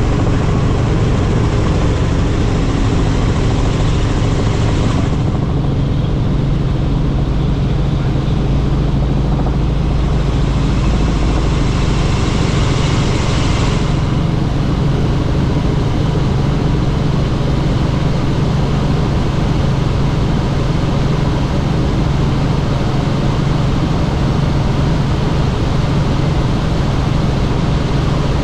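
Helicopter in flight: a loud, steady drone of rotor and engine under a rushing hiss. The hiss thins out about five seconds in, comes back for a few seconds, then eases again.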